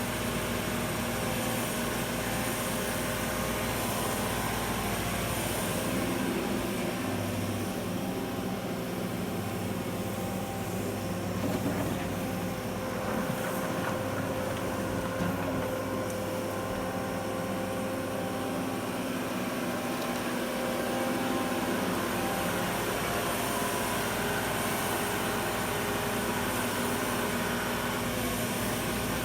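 Menzi Muck M220 walking excavator's diesel engine running steadily, its note shifting a little now and then as the machine works.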